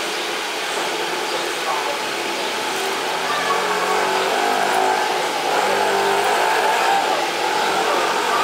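A voice reciting puja mantras over a steady background of noise, growing fuller about two seconds in.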